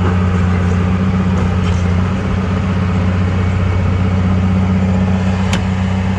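Komatsu mini bulldozer's diesel engine running at a steady speed, with one sharp metallic click about five and a half seconds in.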